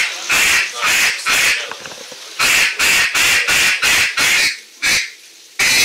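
Duck call blown by hand, imitating duck quacking: runs of quacks broken by short pauses, going into a continuous loud run near the end.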